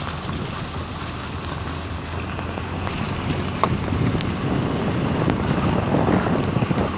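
Wind rushing over the microphone of a moving vehicle, over a steady low rumble from the vehicle, growing louder toward the end.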